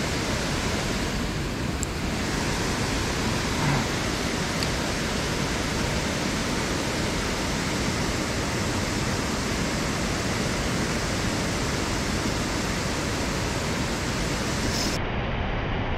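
Steady rushing of water, as from a weir, an even noise that neither rises nor falls.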